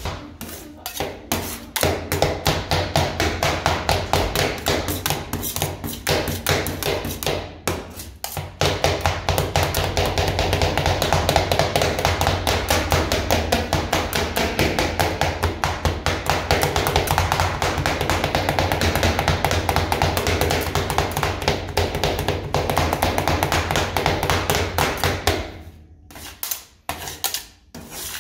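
Metal spatula blades chopping fast and repeatedly on the steel plate of a rolled-ice-cream cold plate, working cucumber into the freezing cream base: a steady, rapid clatter of taps. It breaks off briefly about eight seconds in and thins to scattered taps near the end.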